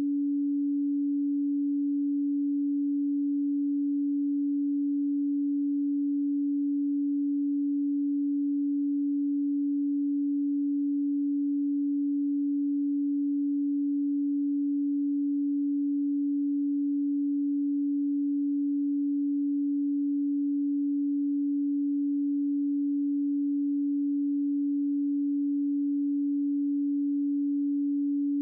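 A pure 285 Hz sine tone, one steady unchanging pitch held without a break.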